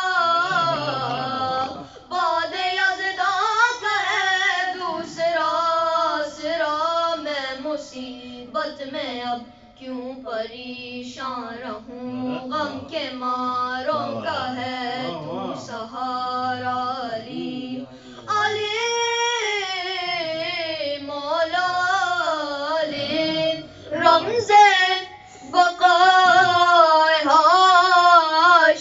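Two boys singing a Shia devotional manqabat in Urdu, unaccompanied, with ornamented, sliding melodic lines and long held notes.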